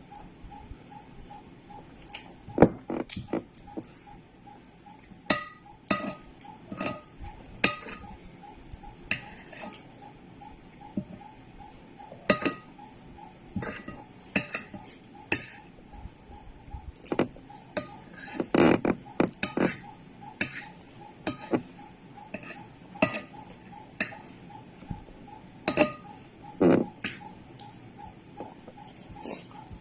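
Cutlery clinking and scraping irregularly against a dish while eating fried rice, with a few louder strikes.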